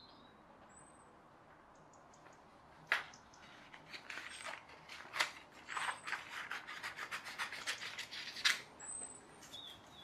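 Scissors cutting through printer paper in a quick run of crisp snips, starting about three seconds in and stopping shortly before the end.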